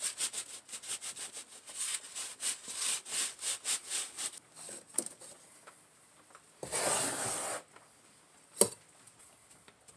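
Petrobond oil-bonded molding sand being rubbed by hand through a wire-mesh riddle into a molding flask: a quick run of short rasping strokes, several a second, for about four seconds. A longer rushing burst of about a second comes past the middle, and a single sharp knock near the end.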